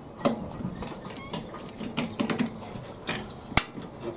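Screwdriver and gloved hands working at a screw in a microwave oven's sheet-metal base plate: scratchy scrapes and small metallic clicks, with one sharp click near the end.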